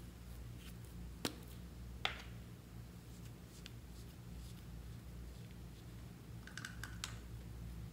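Plastic cap pulled off a lip balm stick: two sharp clicks a little under a second apart, then a quick cluster of small plastic clicks from handling the tube near the end, over a steady low hum.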